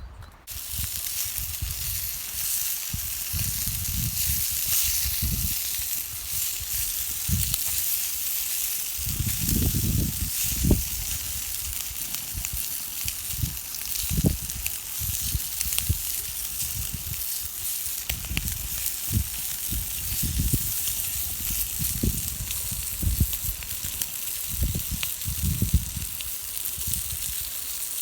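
Food sizzling over a campfire: a steady frying hiss, with irregular low rumbles beneath it. It starts abruptly about half a second in.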